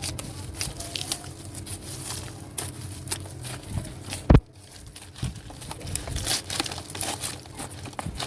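Irregular crackling, rustling scrapes of hard, dry soil and dry kitchen waste being broken up and stirred in a planting container, with one louder knock a little after four seconds in.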